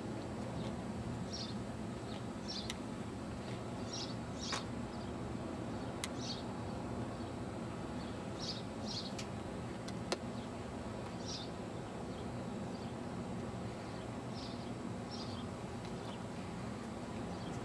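Short, high bird chirps every second or two, often in quick pairs, over a steady outdoor background hiss and hum. A few sharp clicks stand out, the loudest about four and a half seconds in and another near ten seconds.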